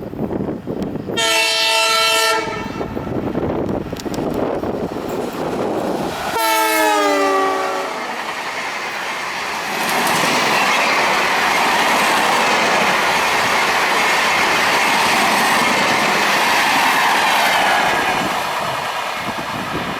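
Diesel locomotive horn (Indian Railways WDP4D, EMD-built) sounding a multi-tone blast about a second in, then a second blast a few seconds later whose pitch drops as the locomotive passes. It is followed by the steady rush of the passenger coaches' wheels on the rails as the train goes by at speed. The blasts are warnings to people crossing the track.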